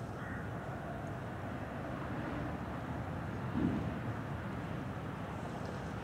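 Steady low outdoor rumble, with a faint thin whine near the start from the HOR Siro-Drone siren's rotor still coasting down after the test, and a short low thump a little past halfway.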